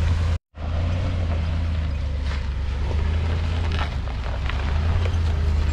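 Pickup truck with a slide-in camper crawling slowly over a rocky trail: a steady low engine drone with scattered clicks and knocks as the tyres and load go over rocks. The sound drops out briefly about half a second in.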